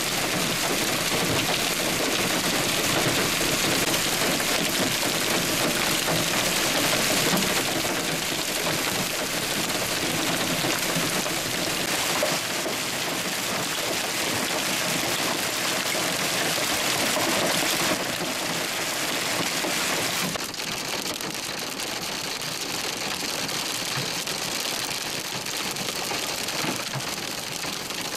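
Heavy rain mixed with hail pouring down and pelting pavement and vehicles: a dense, steady hiss with scattered fine ticks. It drops a little in level about twenty seconds in.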